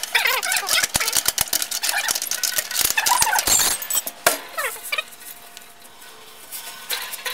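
Stainless steel frames and clamp rings of a rotary vibrating sieve being handled and lifted apart: rapid metal clicks, clinks and knocks with short high squeaks, busiest in the first four seconds and thinning out after.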